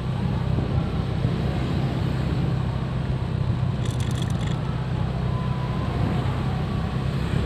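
Motorcycle engine running steadily at cruising speed, with road and wind noise, heard from on the bike among other traffic. A brief clatter of clicks about four seconds in.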